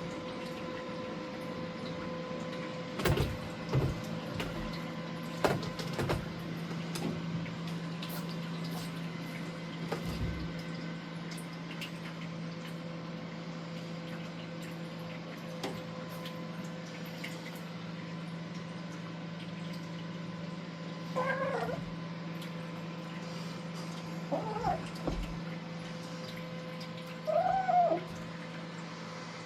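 Kitten giving three short arching meows in the last third, after a run of knocks and thumps from her scrambling on a cat tower in the first few seconds. A steady electrical hum lies underneath.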